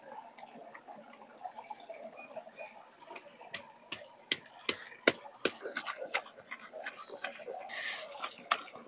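Stone roller (batta) of a sil-batta knocking and grinding on a flat stone slab as roasted tomatoes and green chillies are crushed into chutney. Faint scattered clicks at first, then sharp stone-on-stone knocks about two to three a second from about three seconds in.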